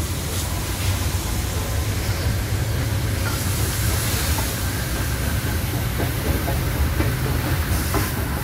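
Heritage steam train rolling slowly past with a steady low rumble, as NSW AD60-class Garratt steam locomotive 6029 comes by. Its steam hiss swells about three seconds in and again near the end.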